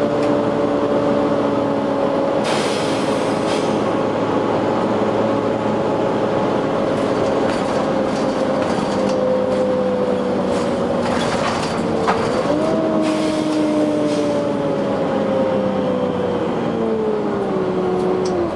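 Volvo B9TL double-decker bus running, with a steady whine in several tones that slowly falls in pitch, jumps up about twelve seconds in and falls again. Short hisses of air come about two and a half seconds in and again around eleven to twelve seconds in.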